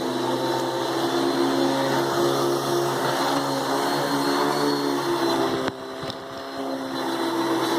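Hoover Dimension 1000 12-amp canister vacuum with its power nozzle running steadily, a constant motor hum with several held tones. About six seconds in it briefly drops quieter, then builds back up.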